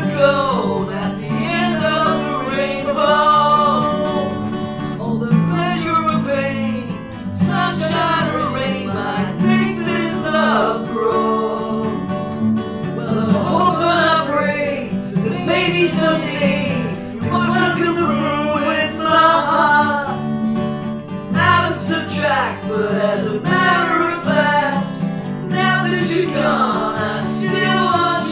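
Music: acoustic guitar accompaniment with a sliding melody line over it, without recognisable lyrics.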